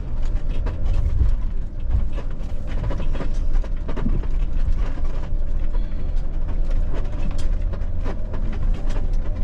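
Four-wheel-drive Mercedes Sprinter van crawling slowly over rocky ledges with its locker engaged: a steady low engine and drivetrain rumble under constant rattling, clicking and knocking.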